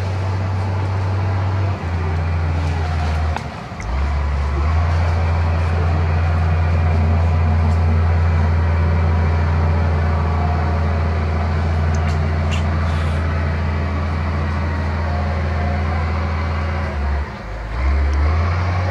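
A steady low engine hum from a motor vehicle, its pitch stepping up or down a few times.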